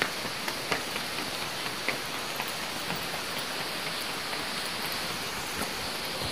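Stream water rushing steadily below the bridge, an even hiss.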